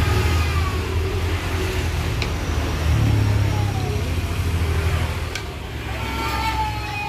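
An engine running nearby, its low hum swelling about three seconds in and dying away near the end. Under it comes the scrape of a wooden pestle grinding sauce in a stone mortar.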